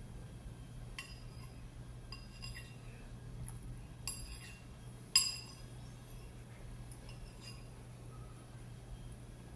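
Metal spoon clinking and scraping against a ceramic bowl while eating, a string of light clinks with the sharpest one about five seconds in. A low steady hum sits underneath.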